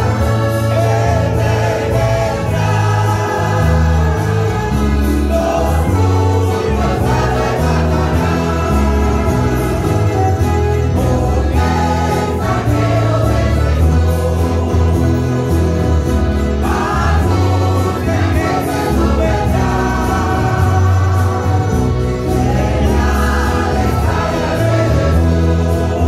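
Church choir singing a Spanish-language hymn, accompanied by an ensemble of strummed mandolins and guitars over steady low bass notes.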